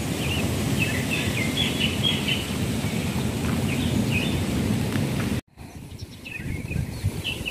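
Wind buffeting a handheld phone's microphone, with small birds chirping high above it. The sound drops out for an instant about five and a half seconds in, then the chirping goes on over a quieter wind.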